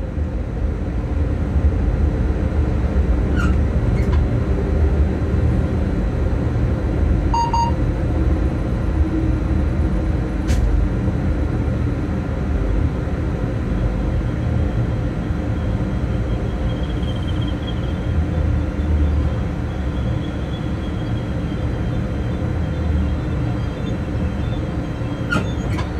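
Steady low rumble of a moving locomotive, heard from inside its cab: wheels running on the rails and the traction equipment. A few brief clicks and a short beep stand out now and then.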